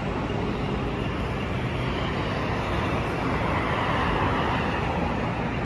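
City street traffic: a steady rush of road noise from passing cars, swelling slightly about four seconds in.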